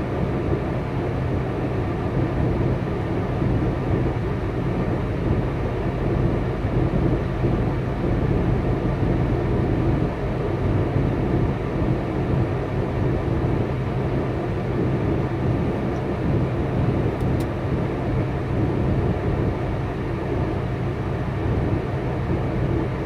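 Steady low drone of a semi-truck's diesel engine idling, heard from inside the cab.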